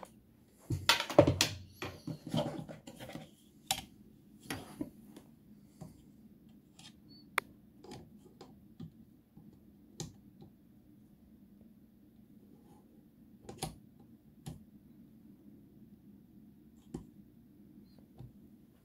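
Blum Movento drawer runner and Tip-On unit being handled by hand: a burst of scraping and rubbing from about one to three seconds in, then scattered light clicks and taps.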